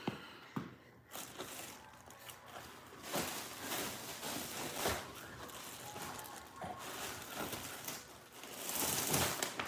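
Plastic trash bag rustling and crinkling in irregular spells as it is filled, loudest about nine seconds in.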